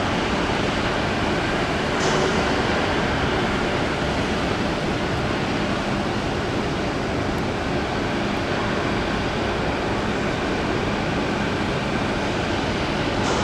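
Steady outdoor background rumble with no distinct events, and a faint short hiss about two seconds in and another near the end.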